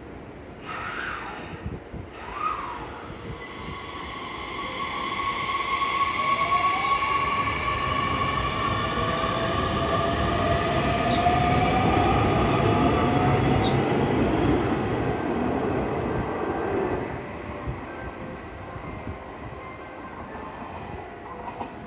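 Hanshin 9000 series electric train pulling out of the station: the motor whine rises in pitch as it picks up speed over a swelling wheel-and-rail rumble, then drops away as the train clears the platform.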